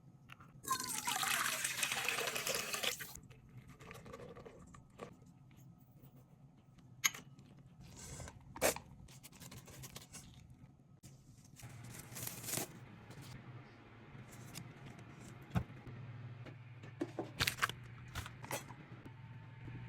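Kitchen sounds: a burst of liquid pouring for about two seconds near the start, then scattered sharp clicks and knocks of utensils and containers, with a low steady hum setting in about halfway through.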